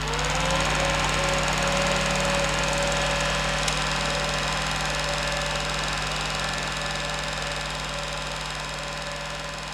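Cine projector running: a steady whirring motor hum with a fast, even mechanical rattle. A tone rises just at the start as it comes up to speed, and the sound slowly fades a little.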